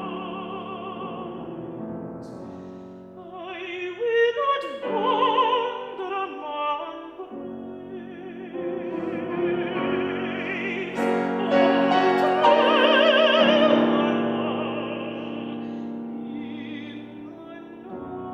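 Classical song with piano: an operatic voice with strong vibrato sings long held notes over piano accompaniment, swelling to its loudest a little past the middle and then easing off.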